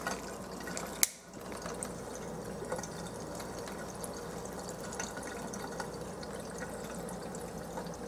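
Thin stream of tap water running from a kitchen faucet and splashing steadily into the sink, with one sharp click about a second in. The lighter flame held in the stream makes no popping or crackling.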